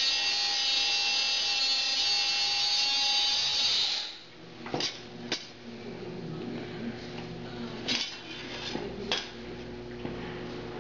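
Electric motor of a Benner Nawman DBR-25WH portable rebar bender running with a loud, steady whine as it bends a 5/8-inch bar, stopping about four seconds in. After it stops come several sharp metallic knocks and a low hum as the bent bar is handled and lifted out of the die.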